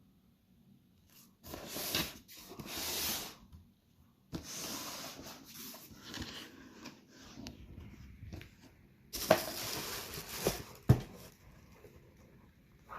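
Cardboard shoebox and its paper wrapping being handled: rustling and rubbing in several bursts, with a couple of sharp knocks near the end.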